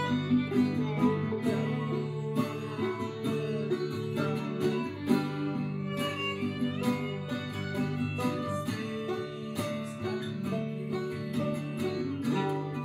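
Acoustic guitar, banjo and fiddle playing a tune together in a bluegrass-like style, with the guitar and banjo plucked under the bowed fiddle.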